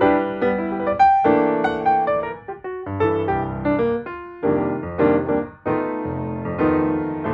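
Background piano music: struck notes and chords that ring and fade one after another.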